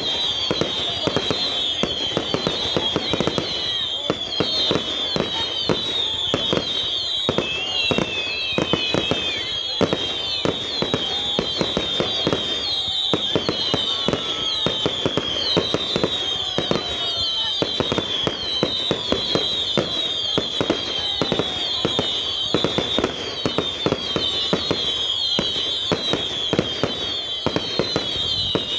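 A fireworks display going off without a break: a rapid barrage of bangs and crackling pops, over a constant shrill whistling from many whistling comets wavering and falling in pitch as they rise.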